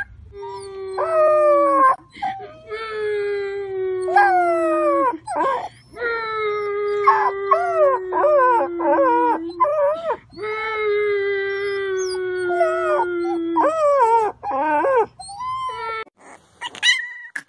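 Puppies howling in long drawn-out cries that waver and fall in pitch, over a steadier low held note. A short high cry comes near the end.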